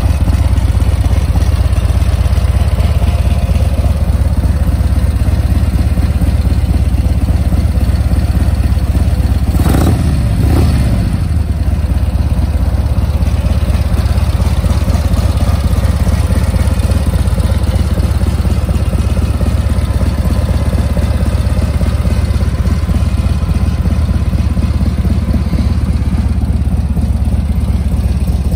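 Harley-Davidson CVO Ultra Limited's Milwaukee-Eight 114 V-twin idling steadily, with one brief blip of the throttle about ten seconds in.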